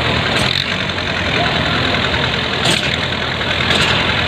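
Tractor diesel engines running steadily, with three short sharp sounds over the engine noise: about half a second in, around two and three-quarter seconds, and near the end.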